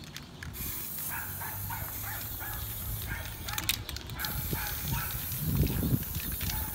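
Aerosol spray-paint can hissing in long bursts as paint is sprayed onto a bicycle frame, with a short pause about four seconds in.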